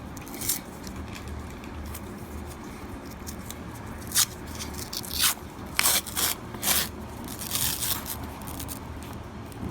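Half dollar coins clicking and scraping against one another as they are slid through by hand, a few sharp clinks and rasps mostly in the second half.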